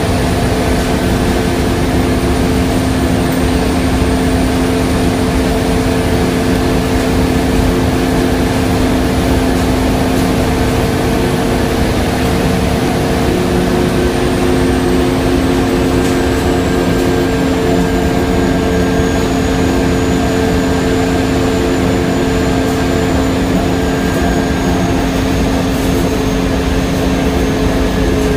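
Passenger cabin of a Scania KUB city bus on the move: the rear-mounted diesel engine and drivetrain give a steady drone with several constant hum tones over road rumble. A faint high whine slowly drifts down in pitch.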